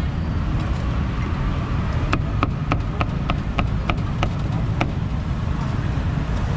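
A cleaver chopping meat on a board: about nine sharp strokes, roughly three a second, starting about two seconds in, over a steady low rumble of street traffic.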